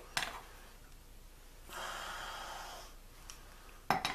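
Small handling clicks as a dial test indicator on a magnetic-base stand is adjusted: one click just after the start and a louder cluster of clicks near the end. In between, about a second of a person breathing out through the nose.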